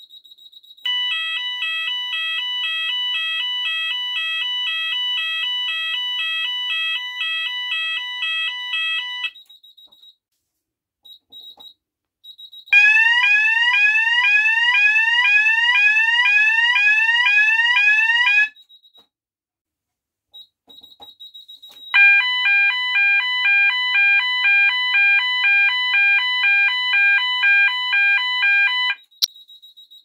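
Electronic fire alarm sounders sounded one after another. First comes a rapid alternating two-tone warble for about eight seconds, then a fast repeating rising sweep tone for about six seconds, then another alternating two-tone warble for about seven seconds, with short near-quiet gaps between them.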